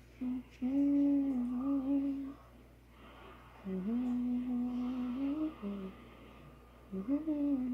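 A voice humming a tune in three phrases of long held notes, with short pauses between them.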